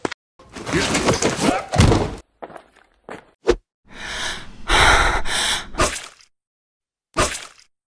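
Cartoon fight sound effects: a stretch of vocal-like sound, a few sharp knocks, then a long loud noisy burst and one more short hit near the end.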